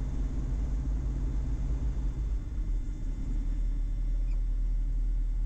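Twin Austro AE300 turbo-diesel engines of a Diamond DA42 running on the ground, a steady low drone heard inside the cockpit. The engine note shifts about halfway through.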